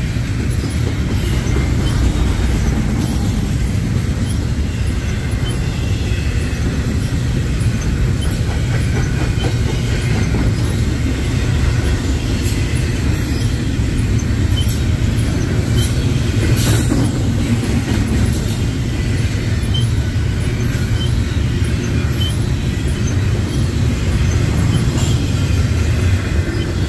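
Freight train rolling past: a steady, heavy rumble of cars on the rails, with scattered clicks and light wheel squeaks and one sharper clank about seventeen seconds in.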